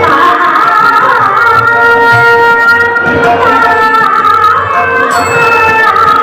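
Bhajan sung in Hindustani classical style: a female voice holds long notes and slides between them over a steady drone, with tabla accompaniment.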